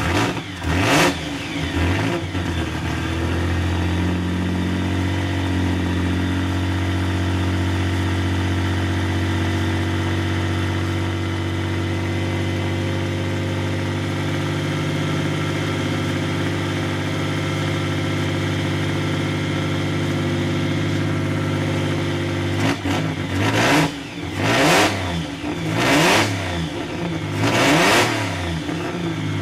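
A 1932 Riley Brooklands race car's engine revs once at the start, then settles into a steady, loud idle. Near the end it is blipped hard about four times in quick succession.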